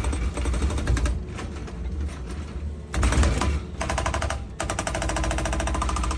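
Excavator working: its diesel engine running under a fast, even mechanical rattle, with a pitched hydraulic-sounding whine coming in about four seconds in.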